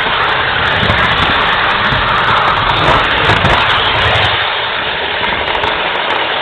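Model train running on its track, heard close from a camera riding aboard: a loud, steady rushing rumble of motor and wheels on rail that eases slightly about four seconds in.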